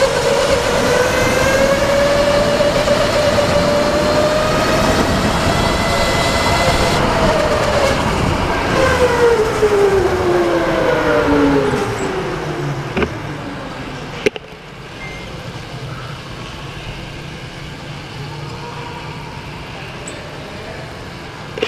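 Go-kart motor whining at speed, its pitch rising and falling through the corners. About halfway through the pitch drops steadily as the kart slows, and it runs much quieter near the end, with a couple of sharp knocks.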